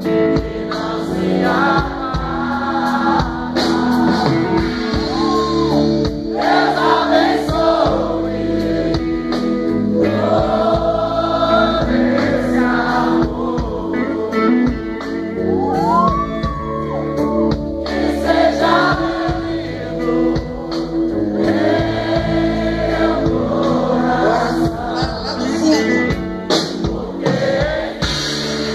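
Live rock band playing a song, with a male lead singer over drums, bass, electric guitars and keyboard, recorded from the audience in a theatre hall.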